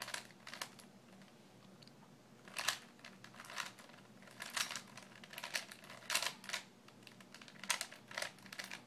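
Rubik's cube being turned by hand through a corner-swap algorithm: a series of irregular plastic clicks and clacks as the layers rotate, some turns much louder than others.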